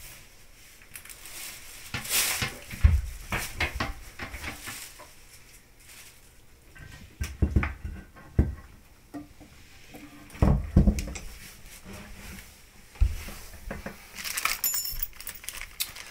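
Irregular knocks and clunks as a porcelain toilet bowl is lowered and set down over the closet flange onto the tiled floor, with a few light clinks near the end.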